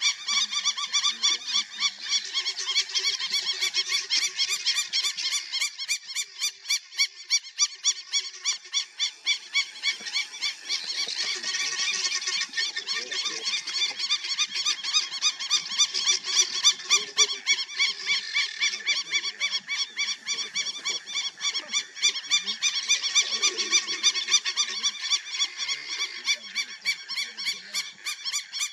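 A dense outdoor chorus of small animals calling in a fast, even pulse, several beats a second, with fainter, irregular lower calls underneath.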